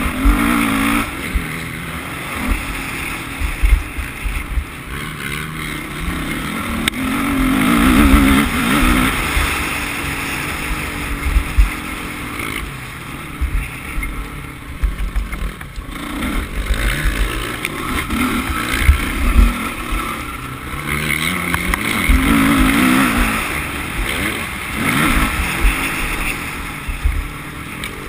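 Dirt bike engine running hard on a motocross track, its pitch rising and falling again and again as the rider opens and closes the throttle through the turns and jumps, with heavy low rumbling thumps on the on-board microphone.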